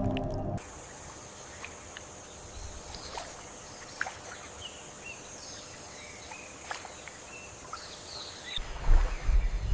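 Outdoor wetland ambience: many short bird chirps and small clicks over a steady high hiss. About nine seconds in, a loud low rumble of wind or water noise comes in.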